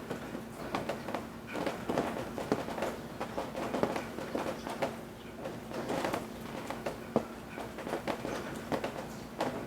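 Rain dripping and splashing from the eaves in irregular drops, several a second, as the rain is easing off.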